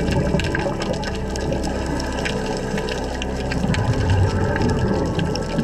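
Underwater ambience picked up by a dive camera: a steady low rumble of water with many scattered sharp clicks, swelling briefly about four seconds in.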